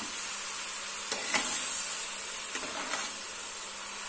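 Flat metal spatula stirring and scraping grated carrots and sugar around a metal kadhai, with a few sharper scrapes against the pan, the loudest about a second and a half in. A steady high hiss from the cooking pan runs underneath.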